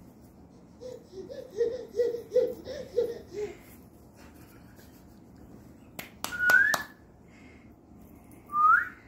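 A quick run of short, high-pitched voice sounds like giggling, about three a second. Later come a few sharp clicks with a brief high whistle, and near the end one short rising whistle, calling a baby to come over.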